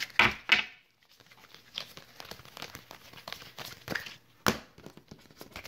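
Crinkling handling noise with many small scattered clicks, and one sharper click about four and a half seconds in.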